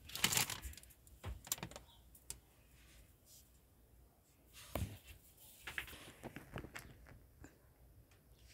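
Faint, scattered light clicks and knocks of hard plastic pony figures being handled and set on a shelf, coming in small clusters.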